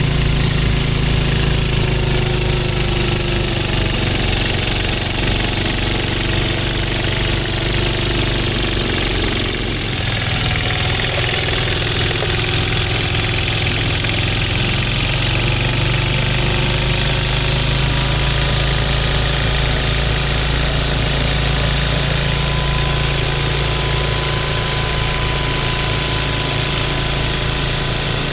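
Snowblower engine running steadily with an even low pulsing, its sound shifting abruptly about ten seconds in.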